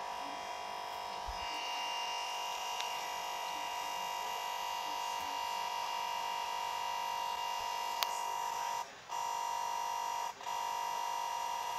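A steady electronic buzzing tone from the computer's audio, stuck on one sound as the Windows virtual machine crashes to its blue-screen error. It cuts out briefly twice near the end.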